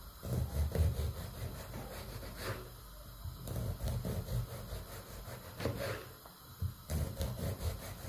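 Chef's knife slicing an aubergine lengthwise into thin slices on a plastic cutting board: the blade rasps through the flesh in a few slow strokes and taps the board as each cut finishes.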